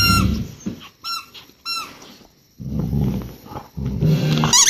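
Dog's rubber squeaky toy squeaking in short, high-pitched squeaks as the border collie chews it: one at the start, two about a second and a half in, and a longer squeak near the end. Muffled low rumbling sounds come between the squeaks.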